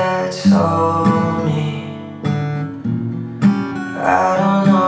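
Background music: strummed acoustic guitar chords, with a fresh chord struck every second or so.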